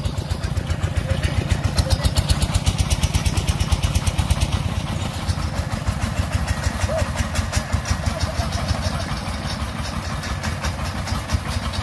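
Single-cylinder diesel engine of a công nông farm truck running with a rapid, even chug.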